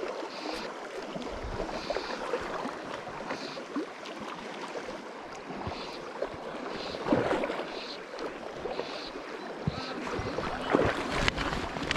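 Shallow river current rushing steadily, with soft repeated swishes of fly line being stripped in by hand. A few louder splashes come near the end as the hooked trout comes close to the surface.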